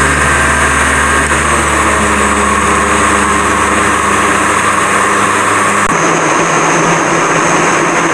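Electric blender motor running steadily, whirring as it blends a full jar of liquid flan batter; about six seconds in, its lower hum drops away and the tone shifts.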